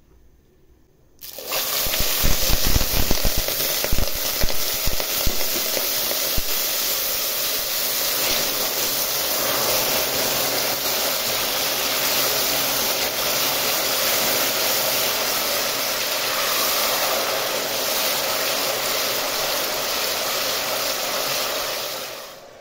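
Hot melted sugar and oil hissing and sizzling loudly as the watery flour mixture is poured in. The hiss starts suddenly about a second in, with heavy knocks over the first few seconds, then settles into a steady boiling hiss that drops away near the end.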